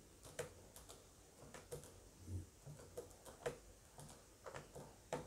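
Calculator keys being pressed: about a dozen light, irregularly spaced clicks as a multiplication is keyed in.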